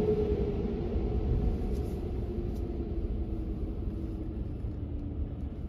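Low, steady rumble of a car's engine and road noise, with a faint tone that slowly drops in pitch as the sound gradually eases off.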